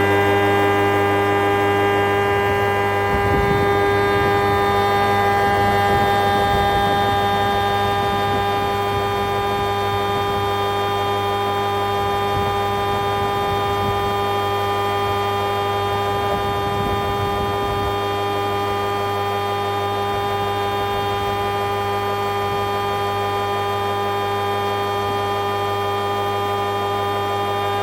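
Jaroma 630 thicknesser's 7.5 kW motor and four-knife cutterhead running steadily at full speed, a constant hum with many steady tones. It is a little louder and rougher for several seconds near the start, then settles.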